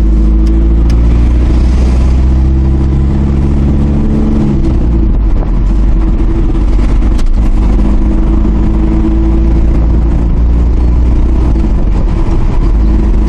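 1998 Hyundai Porter diesel truck engine pulling on the road, heard from inside the cab. The engine note rises steadily, falls away about four and a half seconds in, then climbs again slowly.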